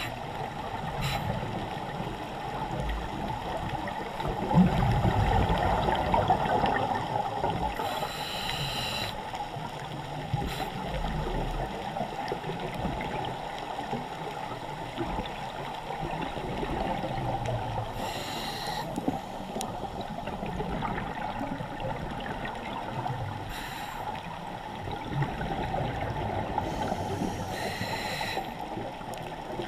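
Underwater sound of a scuba dive: a steady low rush of water, louder about five seconds in. Over it come short bursts of exhaled regulator bubbles, four times, several seconds apart.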